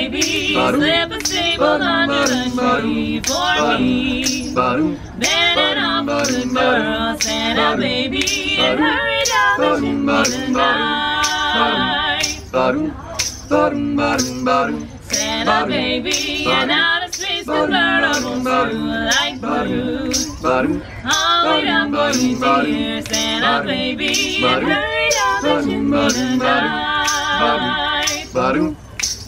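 A small mixed group of male and female voices singing a cappella in harmony, with finger snaps keeping a steady beat about twice a second.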